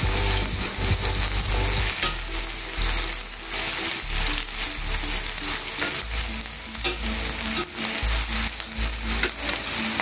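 Sliced onion and green chilli sizzling and crackling in hot oil in a stainless steel pan. A slotted metal spatula stirs them through the oil.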